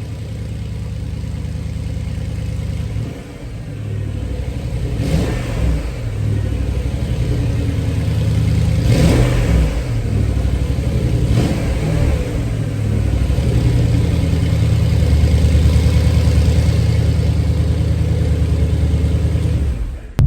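Twin-turbo 4.8 L V8 of a 2011 Porsche Cayenne Turbo (958) running through a SOUL aftermarket exhaust with the secondary cats deleted, just after start-up. It is revved in several quick blips, about three, five, nine and eleven seconds in, then held at a steady, fuller level toward the end.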